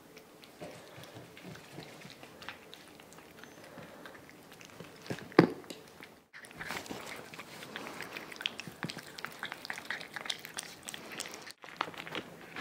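Parson Russell terrier puppy eating from a plate: a steady run of small chewing clicks, with one louder knock about five seconds in.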